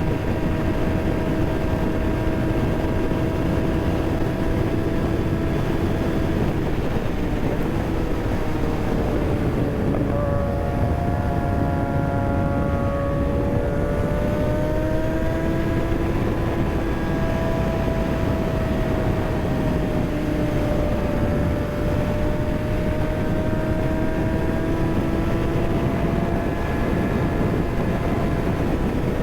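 Kawasaki ZX-6R inline-four engine pulling at a steady rpm under wind rush. About ten seconds in, the engine note jumps, falls away, then climbs again and settles.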